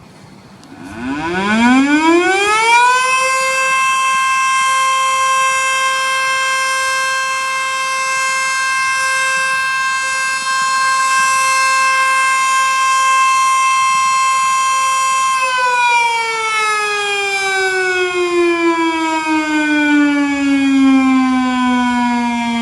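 ACA Screamer S5 outdoor warning siren doing its weekly noon test blast. It winds up quickly about a second in, holds a loud steady tone for some twelve seconds, then starts winding down with slowly falling pitch.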